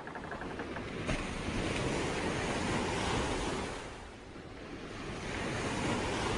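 A rushing noise that swells to its height about three seconds in, eases a little later and builds again near the end.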